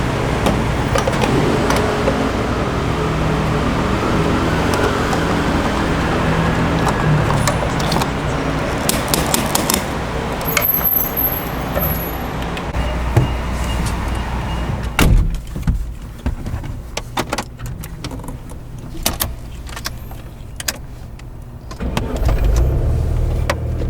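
A vehicle running with steady road noise for about fifteen seconds. Then a quieter stretch of scattered clicks and knocks, before the running noise comes back near the end.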